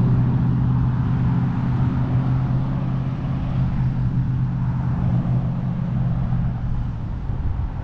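Road traffic heard from a bicycle riding along a busy multi-lane road, with a steady low engine hum that fades out near the end and wind noise on the microphone.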